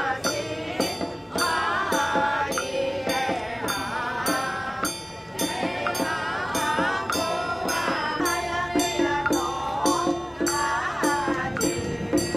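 Music with a steady beat: a crisp percussion tick about three times a second under a wavering melodic line.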